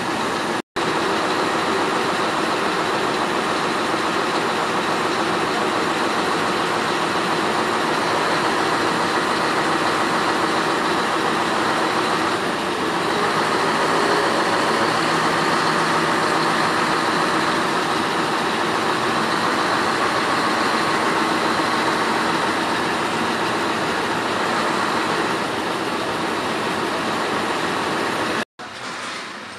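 Heavy truck engine running steadily to drive its truck-mounted knuckle-boom crane while the boom lifts a load. It cuts out briefly twice, under a second in and near the end.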